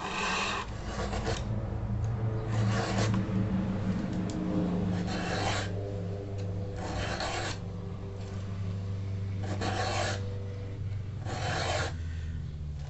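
A round file sharpening the cutters of a chainsaw chain: about seven separate rasping strokes, each about half a second long and a second or two apart, over a steady low hum.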